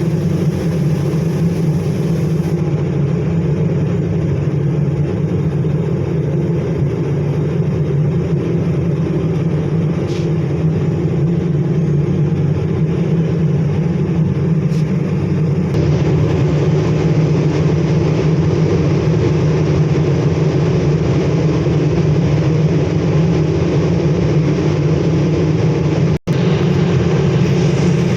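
Steady, loud roar of foundry machinery with a deep hum, unchanging throughout. It cuts out for an instant near the end.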